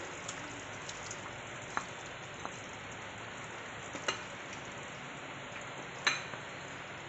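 Wooden spatula stirring fried paneer cubes and peas into a hot, hissing gravy in a frying pan, with a few sharp knocks of the spatula against the pan. The loudest knock comes about six seconds in.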